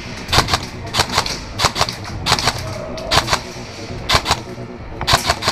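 Airsoft guns firing short bursts of sharp snapping shots: about seven bursts of two to four shots each, roughly one a second.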